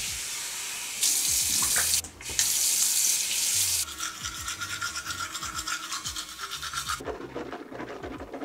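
Water running from a bathroom tap in two loud spells, then a toothbrush scrubbing teeth for about three seconds, with a faint steady tone under it.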